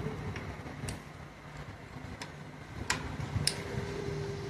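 A tube spanner working the clutch spring bolts of a motorcycle's opened clutch: a few sharp metal clicks and taps, about a second apart, as the bolts are tightened.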